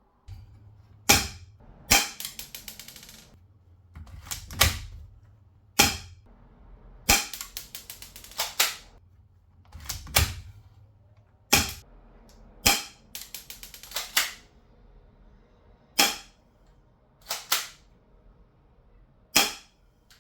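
Spring-powered airsoft 1911 pistol being fired and cocked: about a dozen sharp snaps spaced a second or more apart, several followed by quick runs of lighter clicks.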